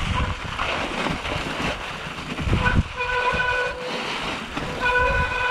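Mountain bike descending a rough snowy trail: the bike rattles and thumps over bumps under a rush of wind and tyre noise. Twice, about three seconds in and again near the end, a steady honking tone sounds as the disc brakes are applied.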